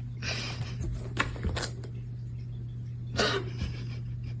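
Short scratching and scrabbling noises with a few sharp clicks, over a steady low hum.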